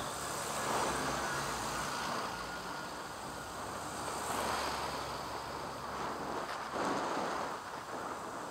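Central London road traffic heard from a bicycle: engines running and vehicles passing, the noise swelling and fading a few times.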